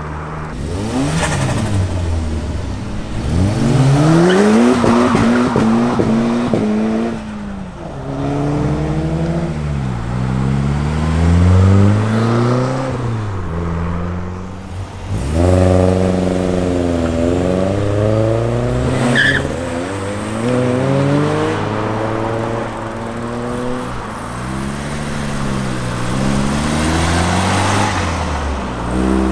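Classic Ford cars, among them Mk1 and Mk2 Escorts, accelerating hard away one after another. Each engine's pitch climbs as it revs up, drops at a gear change and climbs again, several times over.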